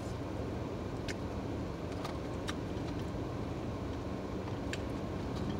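Chewing and a few sharp mouth clicks from eating fries and fried fish, over a steady low hum inside a car.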